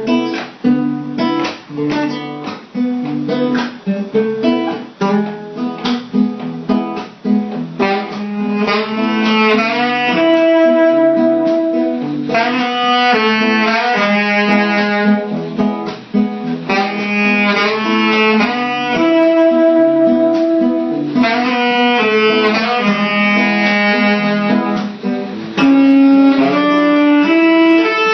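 Instrumental music led by a plucked guitar. About eight seconds in it is joined by a melody of longer held notes.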